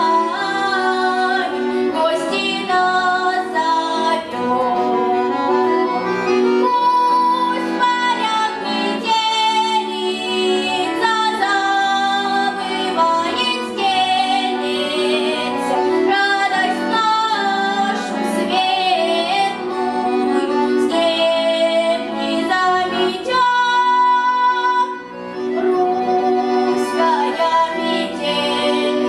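A young girl singing a Russian folk-style song, accompanied by a bayan (button accordion) playing sustained chords under her voice.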